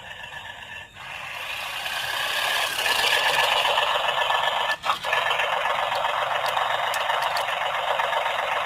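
Simulated tractor engine sound played through the small built-in speaker of a Mahindra Oja remote-control toy tractor, a thin rattling noise that grows louder over the first few seconds, with a brief drop near the middle.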